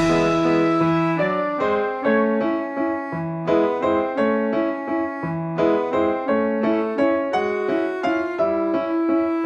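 Background music: a piano-like keyboard melody of separate struck notes, each fading after it sounds.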